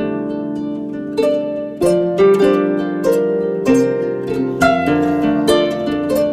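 Background music: plucked-string notes, harp-like, played in a gentle melody over sustained chords.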